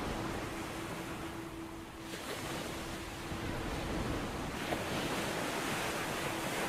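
Recorded ocean surf played back from an online music track: waves washing in, swelling louder about two seconds in and again from about four and a half seconds, over a faint steady hum.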